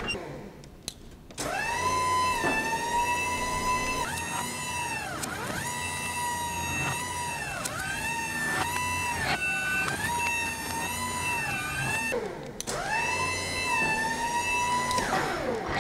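Scissor lift's electric drive motor whining as it moves in short starts and stops, the pitch rising, holding and dropping again about eight times, with the lift's motion alarm beeping rapidly over it.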